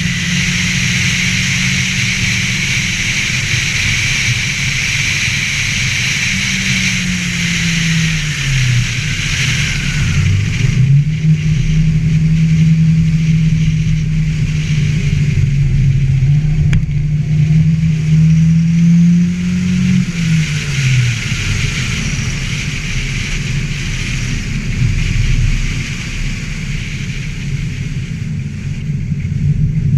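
Ford Festiva race car's engine running hard at high revs, falling off twice as the driver lifts and then climbing back up. A steady hiss runs over the engine note throughout.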